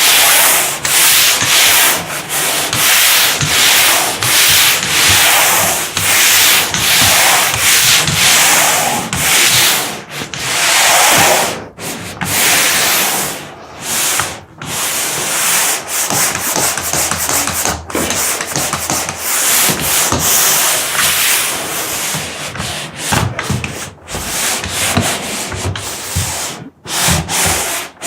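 Hand sanding a painted wall with medium-grit sandpaper: a rasping scratch repeated in quick back-and-forth strokes, with a few short breaks. The sanding scuffs the shine off the old paint so the new coat will stick.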